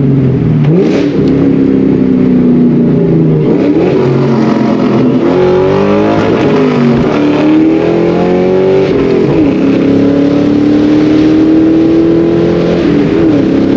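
A 1999–2004 Ford Mustang's engine heard from inside the cabin, pulling hard under full-throttle acceleration. Its pitch climbs through each gear and drops back at each upshift, about four times.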